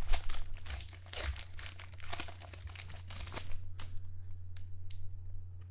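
Foil wrapper of a trading-card pack crinkling as it is torn open, stopping about three and a half seconds in, followed by a couple of light clicks of the cards being handled. A steady low electrical hum runs underneath.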